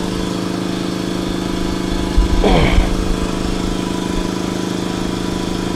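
A motor running steadily with an even drone. A little over two seconds in, a short falling squeal sweeps down through it.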